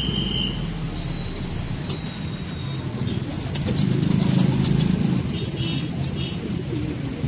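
Racing pigeons cooing in their loft cages, loudest about four to five seconds in, with a brief rustle of wing flaps near the middle and a thin high whistle about a second in.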